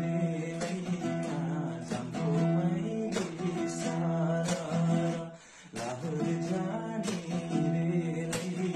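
Acoustic guitar strummed in a steady rhythm, with a young man singing along. The music breaks off briefly about five and a half seconds in.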